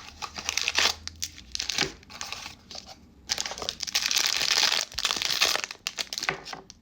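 Blind-box packaging being torn open and handled: rustling and crinkling with tearing, in a dense spell of crinkling partway through.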